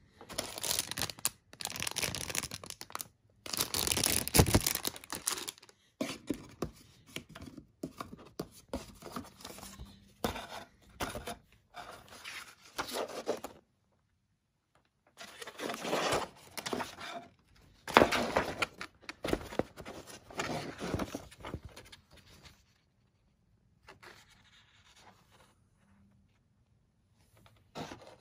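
Crinkling and rustling of a plastic model kit's bagged runners and paper instruction manual being handled, in irregular bursts with short silent gaps, busiest in the first six seconds and sparse near the end.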